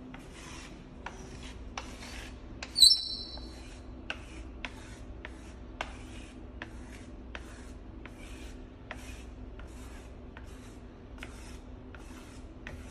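A flat stick scraping dried poultice paste off a granite countertop in repeated short strokes, about one and a half a second, lifting the poultice once it has drawn the stain out. About three seconds in, one sharp, ringing click stands out above the scraping.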